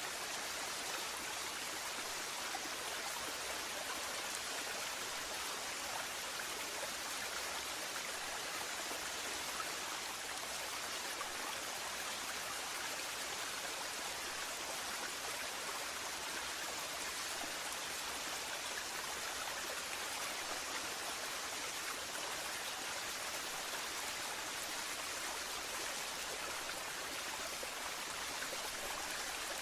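Waterfall: water falling and splashing in a steady, even rush, brightest in the high range.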